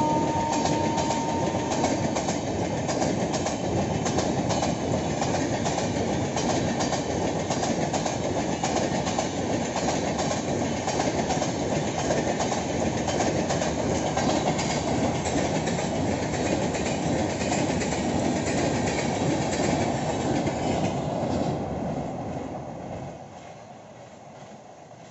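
Passenger coaches of a fast electric-hauled train rushing past, wheels clattering rapidly over the rail joints, with the locomotive's horn trailing off in the first two seconds. The loud passing noise falls away sharply about 22 seconds in.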